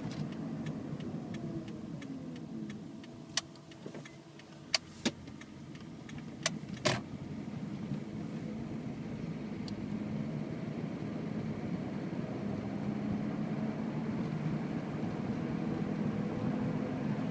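2006 second-generation Toyota Prius's 1.5-litre four-cylinder petrol engine running rough in the condition the owner reports: it sets in about 30 seconds after the engine starts, and he hopes a valve adjustment will fix it. The engine speed and level drop away about a second in, a few sharp clicks come between about three and seven seconds in, then it runs steadily and louder again.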